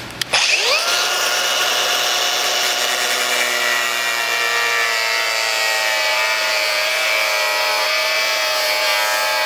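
Cordless Ridgid angle grinder with a cutoff wheel spinning up with a rising whine within the first second, then running steadily as it cuts a tab off a plastic bumper trim panel.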